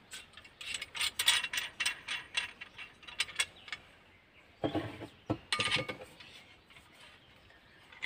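Metal clicking and clattering of a multifunction folding shovel being handled, its manganese-steel blade and aluminium handle knocking together as the blade is repositioned on the handle. Rapid small clicks come first, then a few louder knocks with a brief ringing tone about five seconds in.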